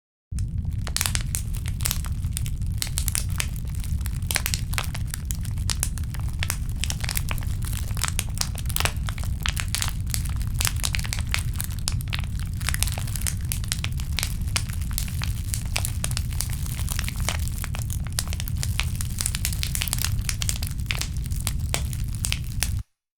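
Imitation campfire crackling made by crumpling and flexing a plastic PET bottle: a dense, irregular run of sharp crackles and pops over a steady low rumble. It cuts off suddenly near the end.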